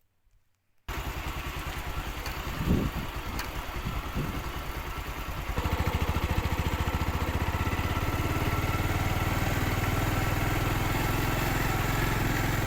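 A small engine running steadily with a fast, even pulse, cutting in suddenly about a second in and getting louder partway through.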